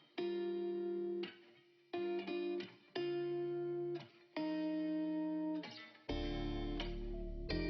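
Background music: guitar chords struck and left to ring about once a second, with a deep bass coming in about six seconds in.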